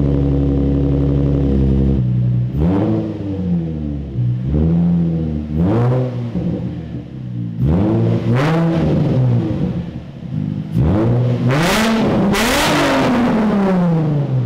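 Nissan 350Z's 3.5-litre V6 idling, then blipped repeatedly through its refabricated exhaust, with the catalytic converters refitted. The revs rise and fall about six times, and the longest and loudest comes about twelve seconds in.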